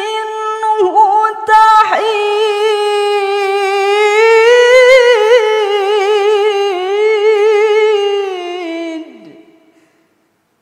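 A woman's voice reciting the Quran in melodic tilawah style, holding one long ornamented note with vibrato. The note falls in pitch and fades out about nine seconds in.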